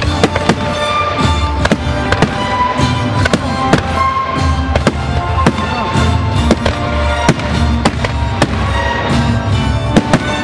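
Aerial firework shells bursting in quick succession, about two sharp bangs a second, over loud music playing throughout.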